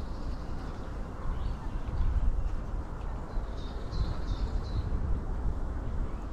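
Outdoor lakeside ambience: a low rumble of wind on the microphone, with a few short, faint, high bird chirps about halfway through.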